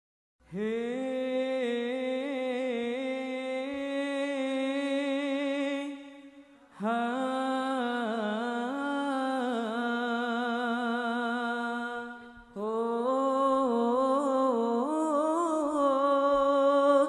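A young man sings a sholawat opening unaccompanied: three long melismatic phrases on the vowels 'hee', 'haa' and 'hoo', each held with wavering ornaments and with a short breath between them.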